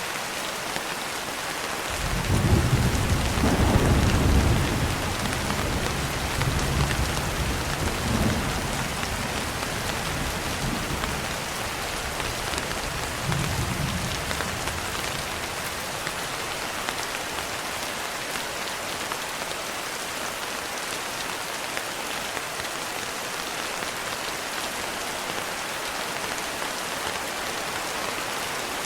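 Steady rain with a roll of thunder. The thunder breaks in suddenly about two seconds in and is loudest over the next couple of seconds. It then rumbles on in a few weaker swells and dies away about halfway through, leaving only the rain.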